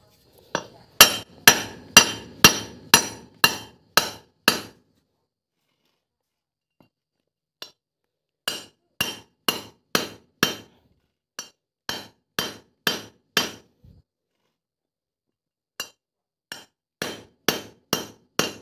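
Hammer striking a drift punch to drive a tight-fitting valve guide out of a small motorcycle cylinder head. The impacts are sharp and ringing, about two a second, in runs of five to eight blows with short pauses between the runs.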